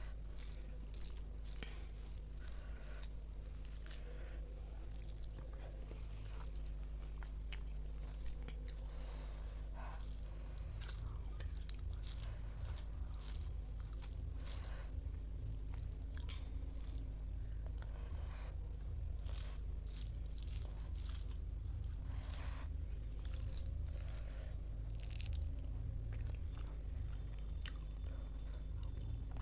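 A person chewing food close to the microphone, with frequent short crunchy clicks, over a steady low hum.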